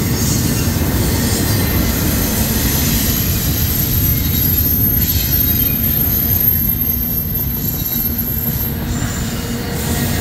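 Double-stack intermodal freight train rolling past: a steady, loud rumble of well cars' wheels on the rail, with a thin high-pitched whine from about a second and a half in until near the end.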